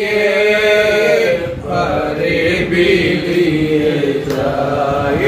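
Men singing a Pranami devotional bhajan, drawing out a long melodic phrase on held vowels with no clear words.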